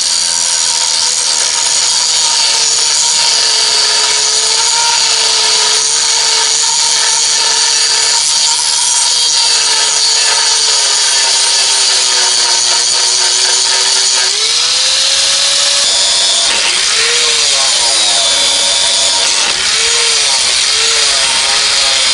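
Electric angle grinder grinding down excess weld on a steel frame, running continuously with a grinding hiss. The motor's hum sags and recovers as the disc is pressed into the metal, swinging up and down more in the second half.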